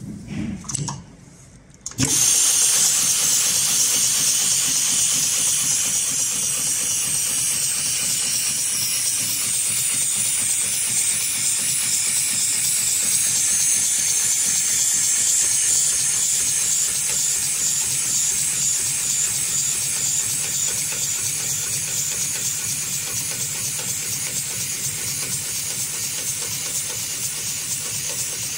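HighTex 71008R heavy-duty automatic rope sewing machine: a few knocks as the rope is set in the clamp, then about two seconds in the machine starts and runs steadily, stitching through a climbing rope with a loud, even hiss.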